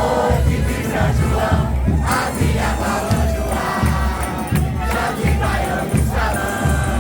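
Festa junina music with a steady drum beat, about two beats a second, under the voices of a large crowd singing and shouting along.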